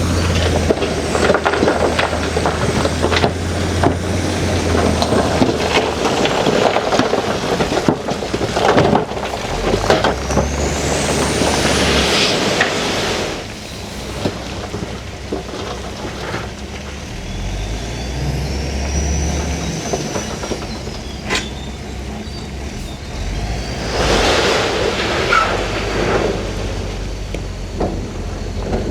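Heavy bulldozer's diesel engine working under load as it pushes rock, the engine note shifting, with clanks and scraping of rock and steel and several high squeals. The engine eases off and the sound drops about halfway through.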